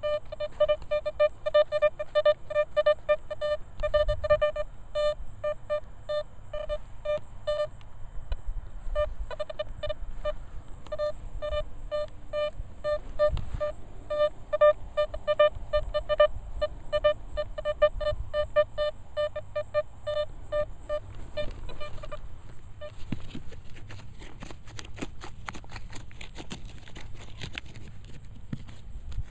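Nokta Velox One metal detector giving long runs of rapid, mid-pitched beeps as its coil is swept over a dug hole, pinpointing a buried target. At about 23 s the beeping stops, and a hand digging tool scrapes and crumbles through the soil.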